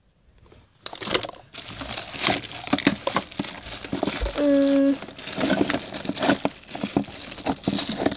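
Plastic bags crinkling and small objects knocking together as a drawer of craft supplies is rummaged through, starting about a second in. A short steady tone sounds briefly about halfway through.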